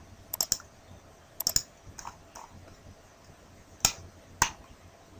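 Computer mouse clicking: two quick double clicks in the first second and a half, two faint clicks, then two single sharp clicks about four seconds in.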